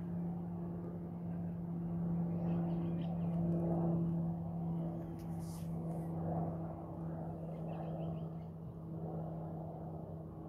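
Distant aircraft flying over: a steady engine drone with a low hum that swells a little mid-way and eases off near the end.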